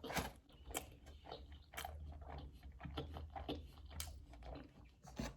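A person chewing a mouthful of steak, bean and avocado baleada in a soft flour tortilla, close to the microphone: quiet, irregular mouth clicks and smacks, with a slightly louder one near the end.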